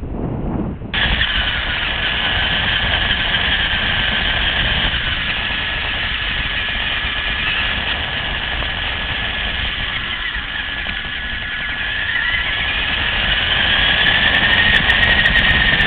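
Electric motor and gear whine of a Latrax RC car, picked up by its onboard camera microphone as the car drives: a steady high whine that starts suddenly about a second in. Its pitch wavers, then rises and grows louder near the end.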